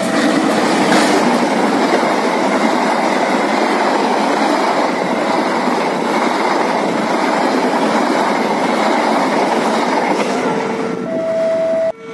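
CC201 diesel-electric locomotive and its passenger coaches passing at speed. It is loudest as the locomotive goes by at the start, then a steady rush of wheels on the rails as the coaches follow. A steady two-note tone sounds near the end as the last coaches clear.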